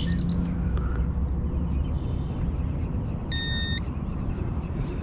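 A digital fish scale gives a single short electronic beep about three seconds in, as it settles on the bass's weight, over a steady low background rumble.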